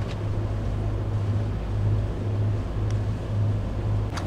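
Boat engine running at a steady speed: a constant low hum, with some wind and water noise.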